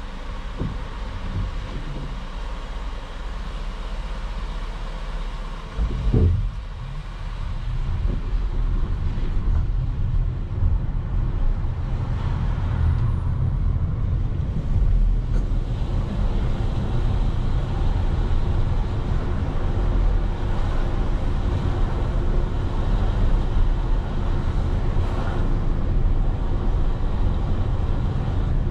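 Road vehicle on the move in city traffic: a steady low rumble of engine and road noise, with a thump about six seconds in, after which the rumble runs louder.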